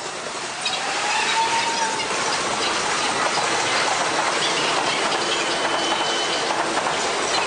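Electric train running past close alongside a station platform: a loud, steady rush of wheels on rail and passing cars, with a brief rising whine about a second in and a thin steady whistle-like tone later on.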